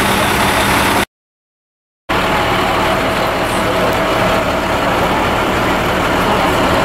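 Large truck engines idling with a steady rumble and low hum, broken by about a second of dead silence near the start. A faint steady whine runs through the second part.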